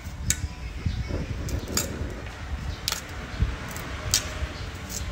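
Cleaver shaving the tough rind off a pumpkin wedge, the blade cutting through the skin in several short, sharp, irregular strokes.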